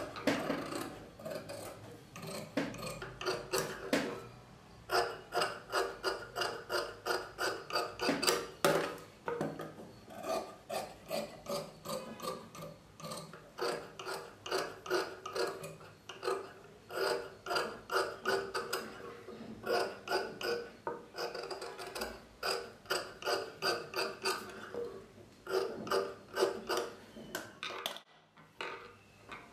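Ralson straight-stitch sewing machine stitching a seam, its mechanism clacking at about four stitches a second in runs with short pauses, and stopping near the end.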